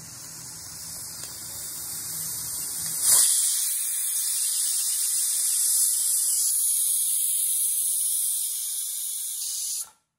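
Prestige aluminium pressure cooker whistling: steam hiss builds over a low hum for about three seconds, then the whistle weight lifts and a loud, high steam whistle blows for about seven seconds, stopping abruptly near the end. The cooker has reached full pressure and is venting steam past the weight.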